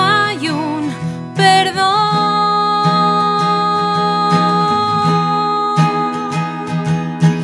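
Acoustic pop-rock song played live on two acoustic guitars, strummed, with a woman singing: her line wavers briefly at first, then she holds one long note from about a second and a half in until near the end.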